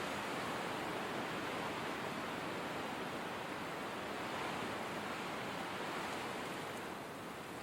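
Steady blizzard wind, an even rushing hiss with gentle swells that eases slightly near the end.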